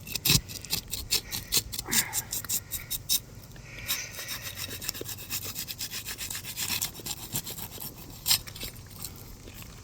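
Asphalt roof shingles being pried up and pulled loose: a fast run of sharp crackles and snaps, then denser scraping, and one loud crack near the end.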